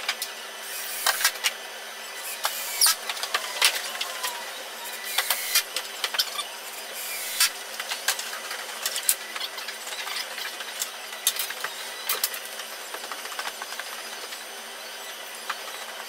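Irregular clicks, knocks and clatter of hands-on work, with a couple of short squeaks, over a steady low hum.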